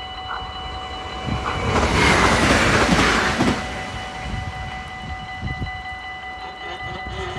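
Level-crossing warning bell ringing steadily. About two seconds in, a train passes at speed, a loud swell of rushing noise that lasts about two seconds and then fades.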